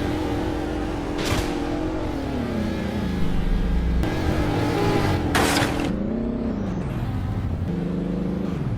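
A vehicle motor revving, its pitch sliding down and back up several times, with two short rushing bursts partway through.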